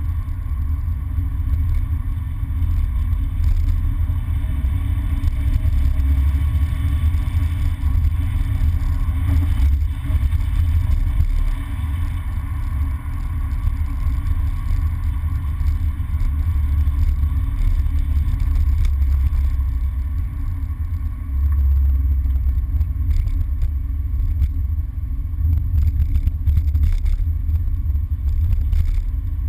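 Engine and road noise of a MINI heard from inside the cabin while driving uphill: a steady low rumble that dips briefly a few times.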